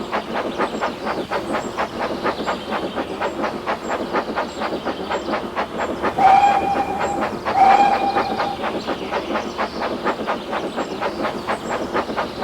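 Steam train running with a fast, even beat of about four or five strokes a second. Its whistle blows twice, each blast about a second long, about six and seven and a half seconds in.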